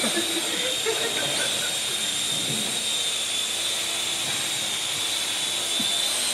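Small quadcopter drone hovering: a steady whir of propellers with a high motor whine held at one pitch.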